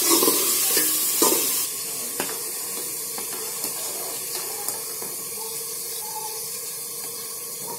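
A steel ladle stirring and lightly clicking against an aluminium cooking pot over a steady hiss from the stove and the simmering pot. The hiss drops to a lower level about one and a half seconds in, and a few light ladle taps follow.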